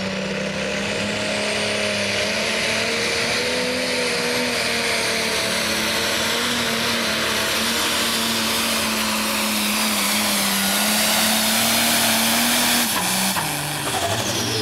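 Light Pro class pulling tractor's turbocharged diesel engine at full throttle, holding a steady high pitch as it drags the weight-transfer sled down the track, with a high whine climbing in the first couple of seconds. About thirteen seconds in the engine drops off to a lower note as the pull ends and the tractor stops.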